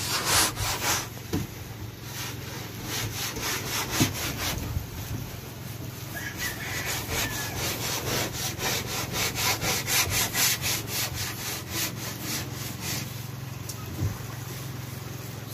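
A paintbrush stroking over the sanded, primer-coated wood of a boat's inside: bristles rubbing back and forth in rapid repeated swishes, which thin out over the last couple of seconds.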